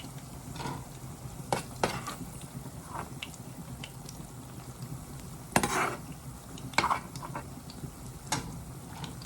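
Plantain frying in hot oil with a steady sizzle, while a utensil clinks and scrapes against the pan about seven times, the loudest a little past halfway.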